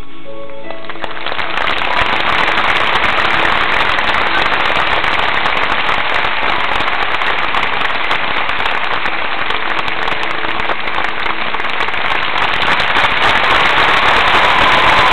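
The music ends about a second in and a large arena crowd breaks into applause, which builds and grows louder near the end.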